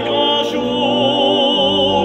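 Tenor singing a classical song with a wide vibrato over sustained organ chords.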